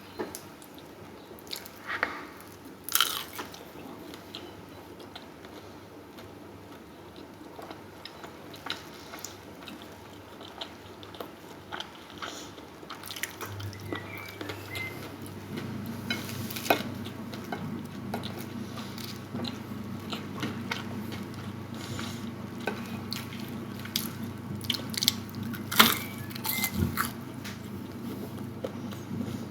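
Close-up eating sounds: a person chewing and biting food, with many short wet clicks and smacks. A steady low hum comes in about halfway through.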